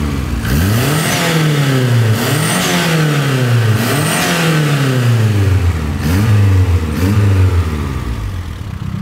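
Turbocharged, forged 2.2-litre eight-valve Chevrolet Vectra engine revved about five times in free rev through a full 3-inch exhaust, the last two blips short, then settling back to idle near the end. A faint turbo whistle rises with the bigger revs.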